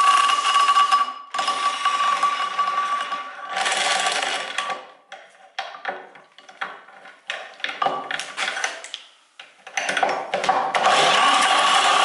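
Electric drill spinning an old engine's crankshaft through a socket as a makeshift starter motor, in three short whining bursts, with the engine turning over but not firing: it has little compression. After the bursts come scattered clicks and knocks as the drill and socket are refitted, then a longer steady run of cranking near the end.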